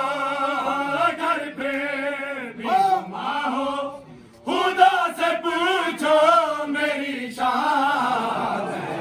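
A noha, a Shia mourning lament, chanted unaccompanied by a group of men, with a brief break about four seconds in before the voices come back.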